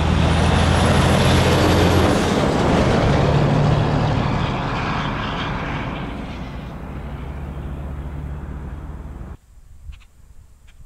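Semi truck's diesel engine running loud as the truck passes, then fading steadily as it drives away. The sound cuts off suddenly about nine seconds in, leaving faint open-air quiet with a few small ticks.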